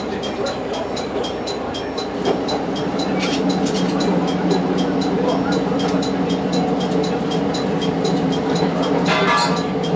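Diesel railcar's engine humming steadily as the train rolls slowly into the station, heard from inside the car; the hum grows louder about two and a half seconds in. A brief burst of noise comes near the end.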